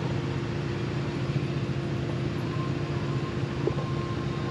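Motor scooter engine running at a steady pitch with road and wind noise; a thin, high steady tone joins about halfway through.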